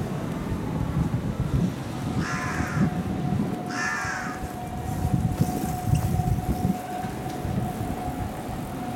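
A crow cawing twice, about two and four seconds in, over low street and wind noise, with a steady thin high tone underneath.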